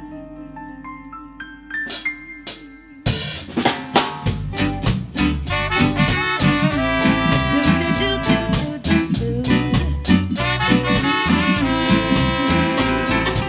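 Live reggae band playing an instrumental passage: a soft held chord with a couple of drum hits, then about three seconds in the drum kit and bass come in with the full band on a steady beat.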